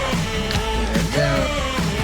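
Background rock song with a singing voice and a steady band.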